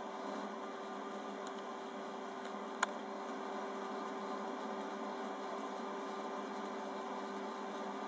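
Small electric motor of a wire-leader twisting machine running with a steady hum, with one sharp click a little under three seconds in.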